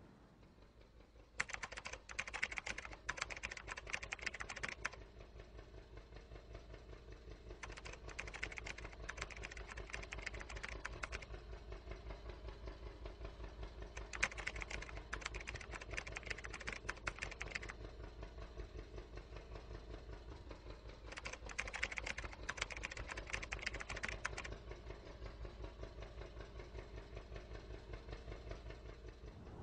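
Four bursts of rapid typing clicks, each lasting about three seconds and coming about every six seconds, over a faint, steady, low rhythmic pulse.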